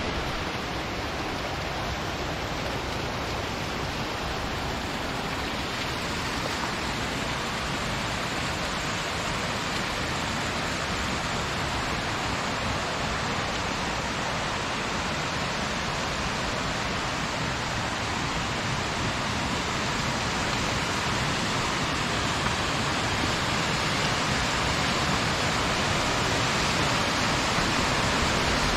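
Rushing water of a mountain stream or waterfall, a steady, even rush that grows slowly louder toward the end.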